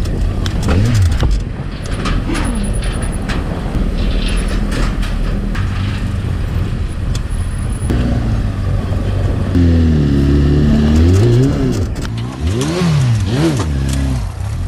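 Honda Fireblade's inline-four engine running at low road speed, with scattered sharp clicks and rattles. In the second half the engine note rises and falls several times as the throttle is opened and closed.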